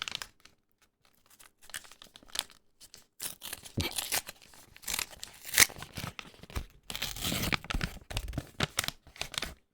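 A paper trading-card booster pack being torn open and handled, with irregular tearing and crinkling strokes, the loudest about halfway through.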